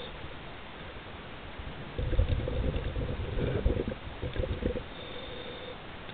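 A scuba diver's exhaled bubbles venting from the regulator: one loud gurgling burst from about two seconds in, lasting nearly three seconds, over a steady underwater hiss.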